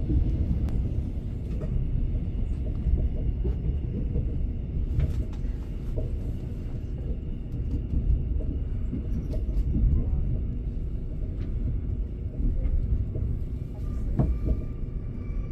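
Passenger train running on the track, heard from inside the carriage: a steady low rumble of wheels and rails with scattered clicks and knocks. A faint high whine comes in near the end.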